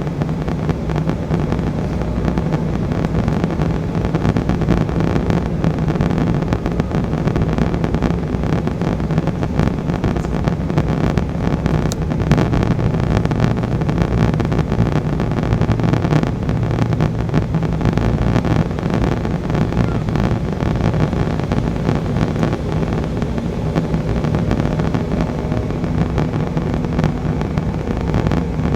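Steady cabin noise aboard an Embraer E175 airliner on its descent: the low drone of its General Electric CF34 turbofan engines mixed with airflow rushing past the fuselage, with a faint steady hum above it.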